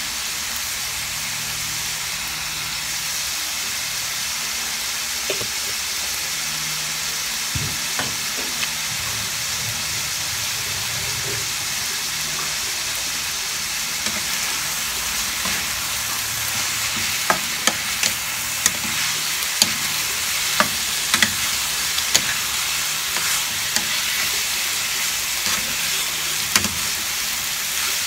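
Chicken pieces frying in oil in a pan, a steady sizzle. From a little past halfway, sharp clicks and knocks join in as a spatula stirs and turns the meat against the pan.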